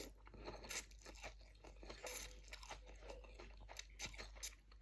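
A person chewing close to the microphone, with many small irregular crunches and wet clicks, eating a dish of dry rice-vermicelli noodles with chicken feet.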